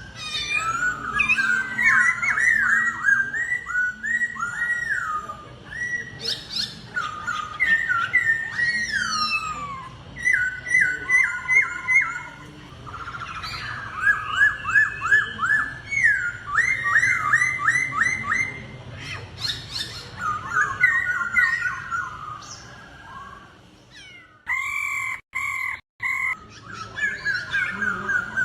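Laughingthrush (khướu) singing: fast runs of clear whistled notes, many sliding down in pitch, sung in repeated phrases with short pauses between them.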